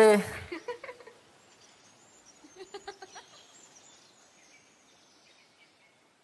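A Punjabi pop song's last sung note ends in the first half-second. After that it is very quiet, with a brief run of soft pitched calls around the middle and faint, high, wavering bird-like chirps.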